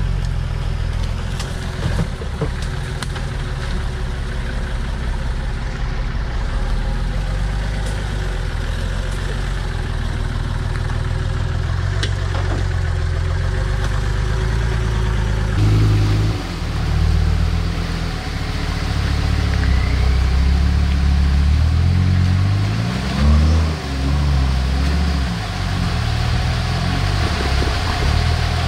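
Off-road 4x4's engine running at low revs, with a few sharp knocks in the first half. About halfway through it gets louder and the revs rise and fall, with a brief rev-up a few seconds before the end.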